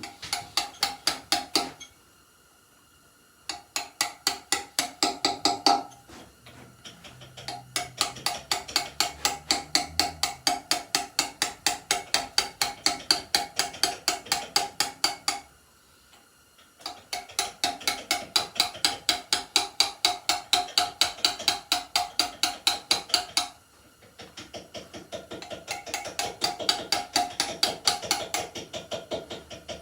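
A hand hammer strikes a steel chisel into stone in quick, even blows, about four or five a second, each with a short metallic ring. The blows come in runs of several seconds, with brief pauses between them.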